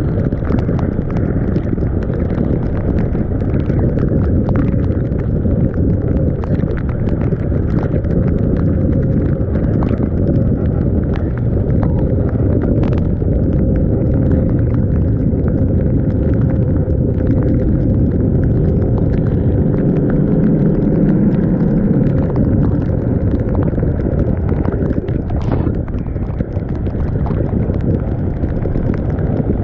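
Wind rushing over an action camera's microphone on a moving Yamaha NMAX 155 scooter, a steady heavy rumble, with frequent sharp ticks of rain striking the camera.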